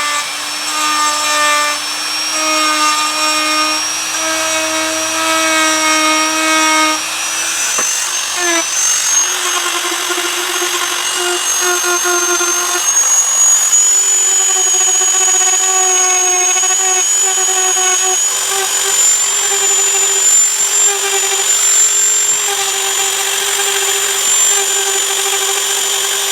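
Small high-speed rotary grinding tool running continuously while grinding out a hairline crack in fibreglass gelcoat before it is filled. A steady high whine creeps slowly up in pitch, and a lower motor note wavers and changes about eight seconds in.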